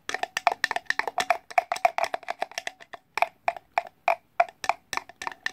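A spoon clicking against a bowl in rapid, irregular strokes, about five or six a second, while a slime mixture is stirred; each click rings briefly.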